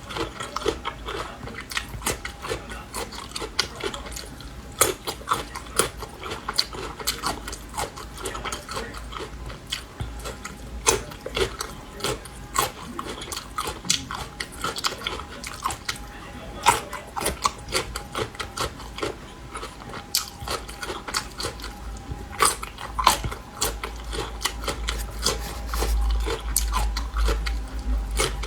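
Close-miked crunching and chewing of vinegar-pickled Laba garlic cloves: a dense, irregular run of crisp bites and chews.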